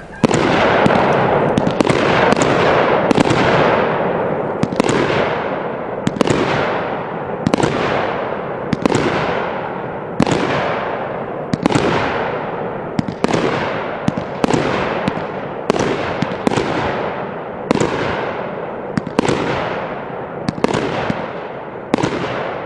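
A 500-gram, 24-shot consumer firework cake firing shot after shot. Sharp bangs come roughly once a second, each followed by a fading rush of sound from the burst.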